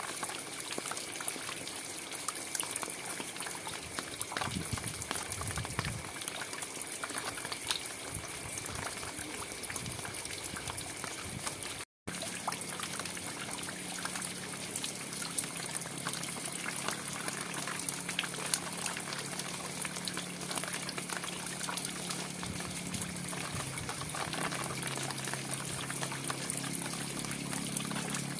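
Steady rain falling, a dense patter of drops with trickling water. The sound cuts out for a moment about twelve seconds in, and after that a low steady hum runs beneath the rain.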